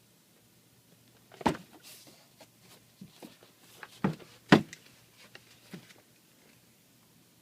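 Camera packaging being handled: a sharp knock about a second and a half in, then two louder knocks half a second apart near the middle, with lighter clicks and taps between.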